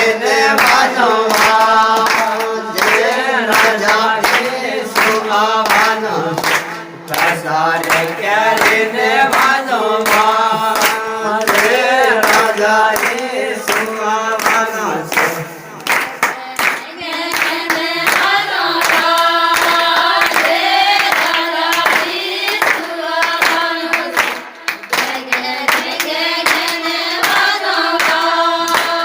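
A group of voices singing a devotional song in chorus, accompanied by steady rhythmic hand-clapping.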